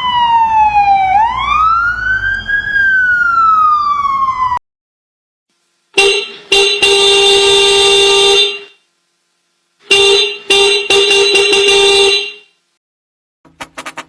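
Siren sound effect: one tone that falls, rises and falls again in pitch, then cuts off suddenly. After a short silence come two long blasts of a vehicle horn, each broken up briefly near its start, and near the end a fast run of light clicks begins.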